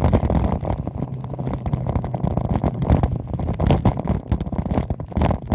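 Wind buffeting the microphone over the rumble of tyres rolling on a dirt and gravel trail, with frequent small knocks and rattles as the bike rides over rough ground.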